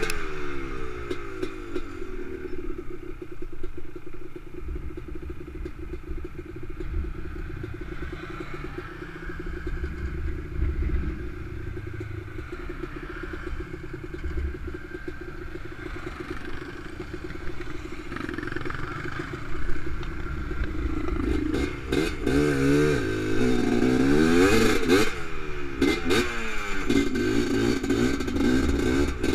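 Honda TRX 250R quad's two-stroke single-cylinder engine running at fairly steady low revs on a dirt trail, then revving up and down repeatedly and louder, with rising and falling pitch, from about two-thirds of the way in.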